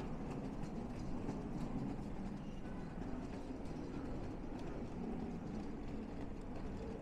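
Steady low rumble of a large indoor hall, with faint footsteps ticking through it.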